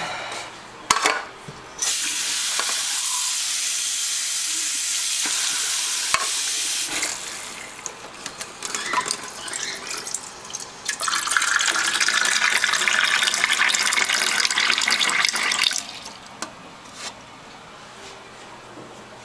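Tap water running, in two spells of several seconds each with small knocks and clatter between them, the second spell sounding like water filling a container: refilling the cockatiels' water dish.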